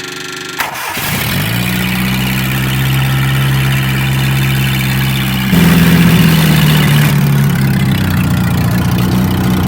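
Repowered Mustang skid steer's 2.3-litre engine catching under a second in and settling into a steady idle. Its speed steps up briefly around the middle, then drops back to idle.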